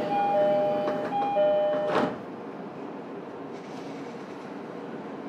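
E231-series commuter train's door chime, a high and a low note repeating, ending about two seconds in as the sliding doors shut with a thump. The car then stands with a lower steady background noise.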